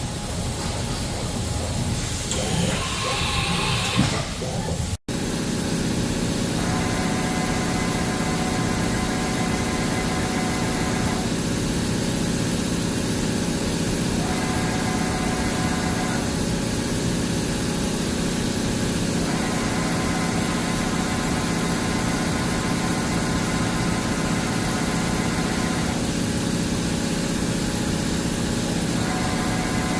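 Haas VF-12 CNC vertical machining center running under power: a steady machine hum, with a higher whine that switches on and off every few seconds. A sudden cut about five seconds in separates it from a short stretch of mixed noise.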